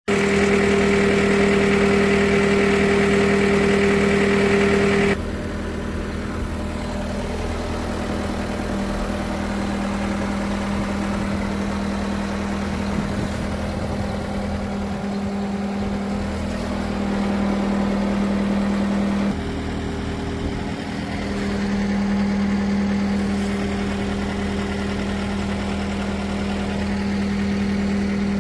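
John Deere 325G compact track loader's diesel engine running at a steady speed with an even hum. About five seconds in it drops in level and its higher hum fades, coming back around nineteen seconds in.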